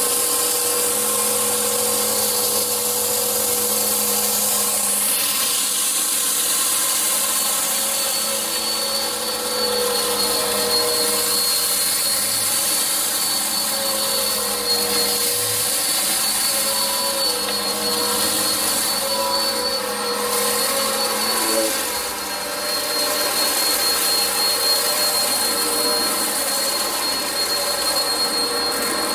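Eureka upright vacuum cleaner running steadily while being pushed over the floor, its motor giving a constant whine with a thin high tone. The sound dips briefly about two-thirds of the way through.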